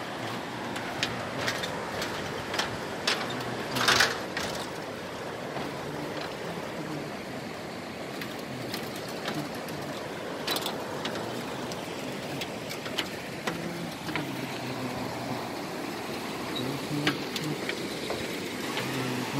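Footsteps clanking and rattling on the metal-slat deck of a suspension bridge, in irregular sharp clicks. Under them runs the steady rush of the river below.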